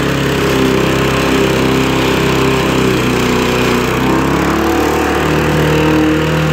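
Modified walk-behind lawnmower's small single-cylinder engine running, with its pitch wavering a little and shifting about two-thirds of the way through.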